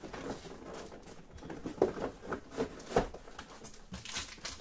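Several soft knocks and taps of cards and boxes being handled and set down on a tabletop, followed near the end by the crinkle of a foil card-pack wrapper being picked up.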